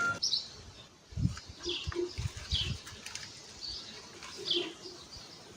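Small birds chirping: about eight short, high chirps that each drop in pitch, a few brief lower notes, and several soft low thumps about a second in.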